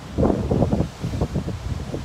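Gusty storm wind buffeting the microphone in irregular low rumbles, strongest from about a quarter second in, over rough surf breaking on the rocky shore.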